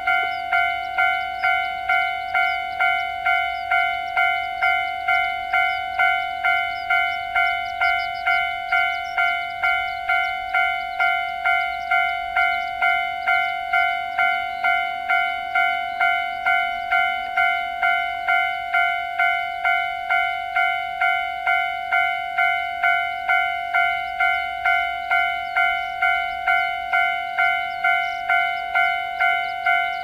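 Japanese railway level-crossing warning bell ringing its standard alarm: an even "kan-kan" tone struck a little over twice a second, each strike fading quickly, while the crossing is closed.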